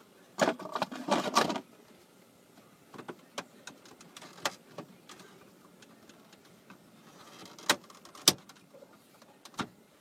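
Plastic dash trim around a 2003 Chevy Silverado's four-wheel-drive selector switch being pried at by hand: about a second of rapid clicking and rattling half a second in, then scattered sharp clicks, the loudest ones near the end.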